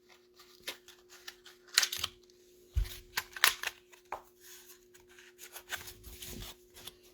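Football trading cards and their pack wrapping handled on a table: scattered rustles, clicks and taps, with a low thump about three seconds in. A faint steady hum sits underneath.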